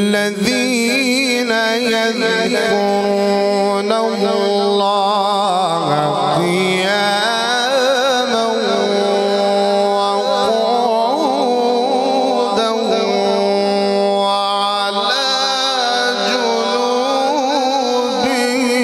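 A man's voice reciting the Qur'an in the slow, melodic mujawwad style, drawing each syllable out into long held notes with quavering turns and ornaments.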